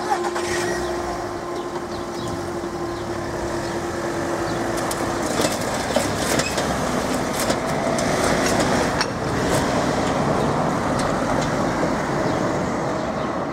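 Level-crossing barriers raising, with a steady hum from the barrier mechanism that stops about five seconds in. Road traffic then moves off over the crossing, with cars driving past.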